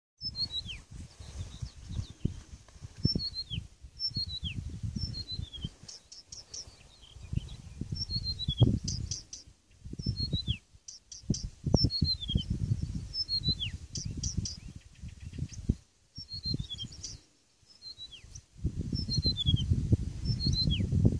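Blyth's reed warbler singing: short, high phrases, many sliding downward, repeated about once a second with brief pauses. A loud, uneven low rumble runs underneath.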